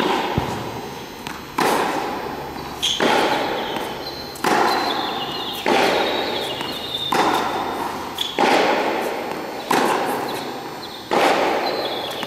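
Tennis groundstroke rally on an indoor hard court: the ball is struck with rackets back and forth, a sharp hit about every second and a half, each echoing in the hall.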